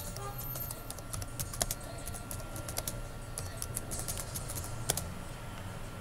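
Computer keyboard being typed on, irregular keystroke clicks a few a second, over a low steady hum.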